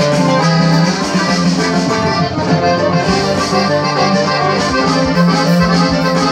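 Live band music: an accordion carries held melody notes over a bajo quinto's strummed chords and bass runs.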